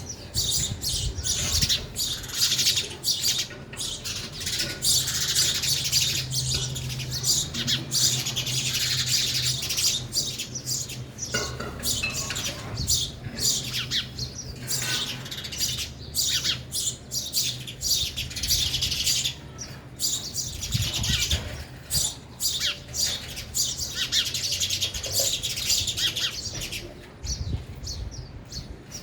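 House sparrows chirping, many short calls overlapping continuously.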